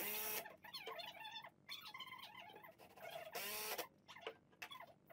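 Cordless driver running screws through a lathe faceplate into a wood blank, in two short bursts about three seconds apart, its motor whine rising and falling each time. Faint squeaks between the bursts.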